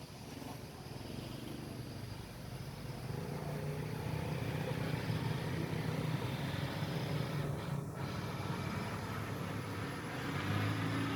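A vehicle engine running with a steady low rumble, growing louder about three seconds in.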